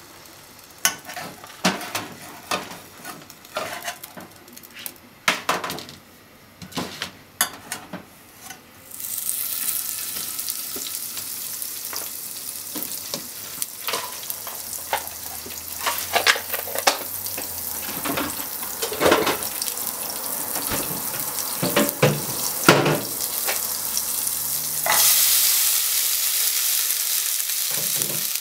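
A few sharp clicks and knocks, then butter starts sizzling in a nonstick frying pan about nine seconds in, with scattered knocks of utensils on the pan. Near the end sliced onions go into the hot fat, and the sizzle suddenly grows louder and stays up.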